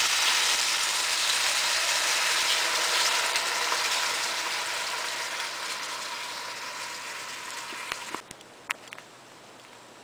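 Canned beans and their liquid sizzling in hot oil in a pan. The sizzle is loud at first and dies down gradually, then stops abruptly about eight seconds in, followed by a few faint clicks.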